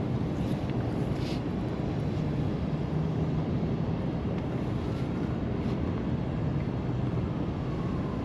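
Steady low rumble of wind buffeting the microphone, with a few faint light ticks now and then.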